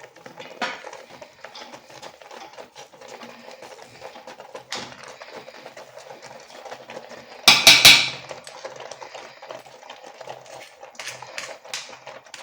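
Kitchen utensils clinking and scraping against a soup pot as chopped okra is added, with small clicks throughout and a short, loud clatter a little past the middle.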